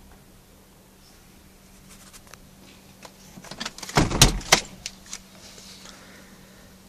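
Handling noise as a phone is moved about inside a car: a short burst of rattling, clicks and knocks, loudest just after four seconds, over a faint steady hum.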